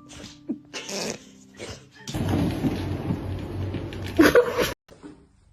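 A dog making vocal sounds over a noisy background, the loudest a sharp pitched cry about four seconds in that cuts off suddenly.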